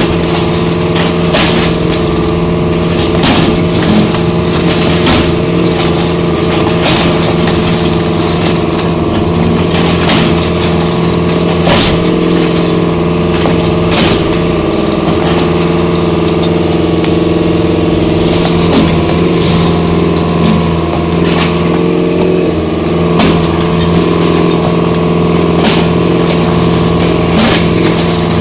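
A heavy diesel engine, most likely an excavator's, running steadily under load, with scattered knocks and crunches of debris being broken and moved throughout.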